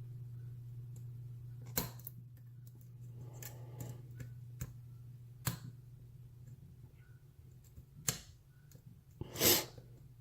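Faint sharp clicks and scrapes of a lock pick and tension wrench working the spool pins of a brass padlock, the lock held in a false set, over a steady low hum. A louder, slightly longer rush of sound comes near the end.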